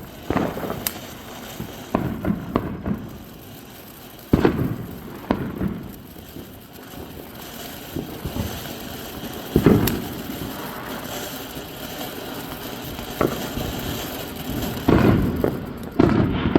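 Fireworks going off: about a dozen sharp bangs at irregular intervals, some followed by a short echoing tail.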